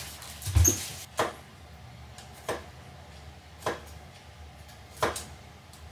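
Kitchen knife cutting garlic on a cutting board: single slow cuts, one about every second and a quarter, after a dull thump about half a second in.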